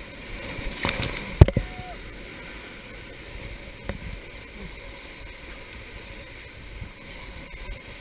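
Whitewater rapids rushing and splashing steadily around an inflatable raft as it runs through them, with one sharp knock about a second and a half in.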